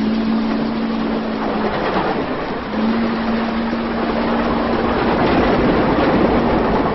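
Steady hiss of rain with two long, steady blasts of a low horn chord: the first about two seconds long, the second about four.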